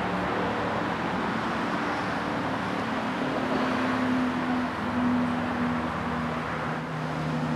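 Steady road traffic: tyre noise with the low hum of passing vehicle engines.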